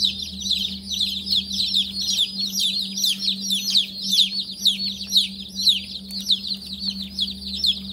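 A brooder full of day-old Cornish cross meat chicks peeping nonstop: many high, quick, falling chirps overlapping into one continuous chorus. A steady low hum runs underneath.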